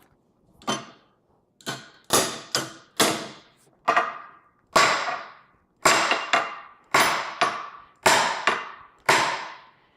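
Hammer blows on metal, about a dozen sharp ringing strikes coming closer together toward the end, working a rusted U-joint bearing cap loose as it is pressed out between sockets in a vise.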